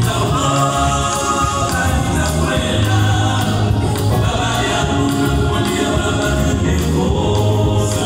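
Gospel choir singing an upbeat song, the voices carried over a steady beat and a bass line.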